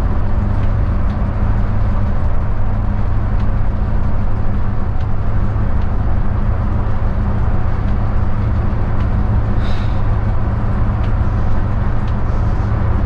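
Cab interior of a Hyundai coach cruising on an expressway: a steady low engine drone mixed with road and tyre noise.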